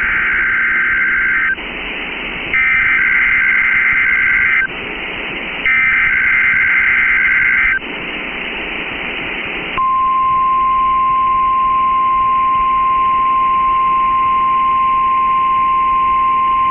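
Emergency Alert System broadcast over NOAA Weather Radio. Three screechy bursts of SAME header data, each about two seconds long, alternate with radio static hiss. Then, from about ten seconds in, a single steady 1050 Hz weather-radio warning alarm tone sounds, signalling that a warning message follows.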